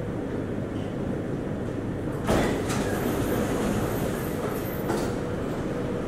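MRT train's sliding passenger doors opening at a station stop: a sudden rush of noise about two seconds in, ending with a knock about five seconds in, over the steady low hum of the stopped train car.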